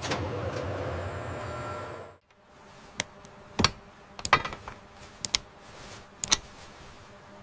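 Steady factory hum for about the first two seconds, cutting off abruptly. Then a series of sharp metallic clicks and taps at irregular spacing, hand tools and a gauge handled against a metal engine part.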